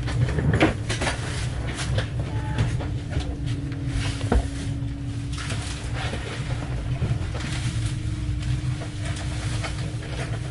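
Inside an air-conditioned 3AC economy train coach on the move: a steady low rumble from the running train with a constant hum over it. Scattered light clicks and knocks come through, one sharper knock about four seconds in.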